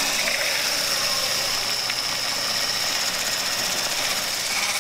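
Braun hand blender with a whisk attachment switched on and running at a steady high whine as it whips egg whites into meringue.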